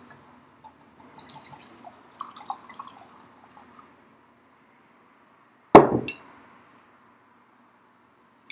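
Scotch being sipped from a glass, with faint slurps and liquid sounds, then about six seconds in the glass knocks down on a hard surface with a brief ring.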